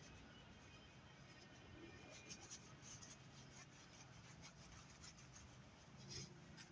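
Near silence: room tone with faint scattered ticks and light rustling.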